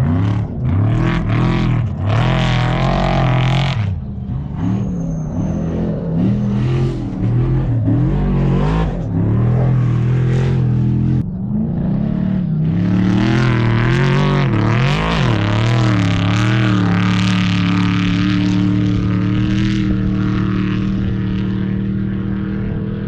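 Off-road race vehicle's engine under way, its pitch rising and falling again and again through gear changes and throttle, then holding steady near the end, with a loud rushing hiss over it.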